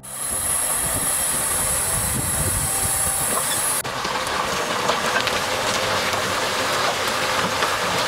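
Tipper truck with a Fliegl body running as its hydraulic bed tips and dumps a load of earth and stones. A high hiss stops about four seconds in, and the sound becomes a broad rush with many small rattles as the load pours out.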